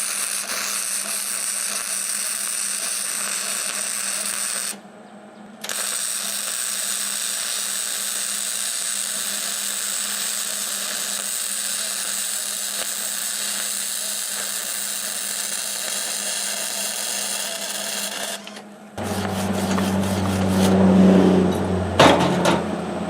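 MIG welder arc crackling steadily as it welds a bead on a steel tractor wheel rim to seal a leak, in two long runs with a break of under a second about five seconds in. The welding stops about a second and a half from the end, a low steady hum takes over, and there is a sharp click near the end.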